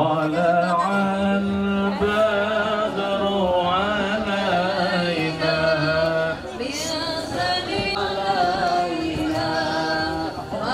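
Vocal music: a voice chants a slow melody in long, wavering held notes, with a lower held note beneath it for the first half.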